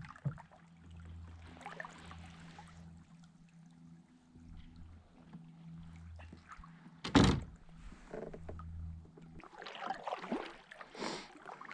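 A kayak hull knocked once: a loud hollow thunk about seven seconds in, with water splashing and rustling near the end.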